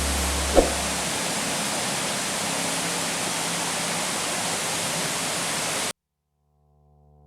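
Waterfall rushing, a steady dense roar of falling water that cuts off abruptly about six seconds in. A brief knock is heard about half a second in.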